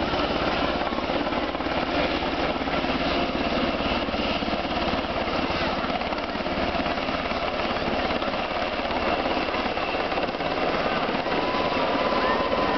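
US Army UH-60 Black Hawk helicopter flying low on its approach to land, its main rotor giving a loud, steady, rapid chop.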